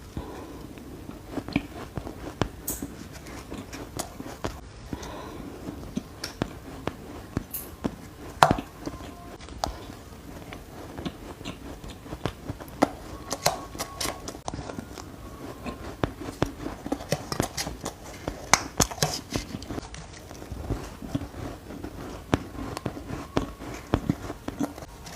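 Someone biting and crunching spoonfuls of shaved ice, making many irregular sharp crunches and crackles. The loudest crunch comes about eight seconds in.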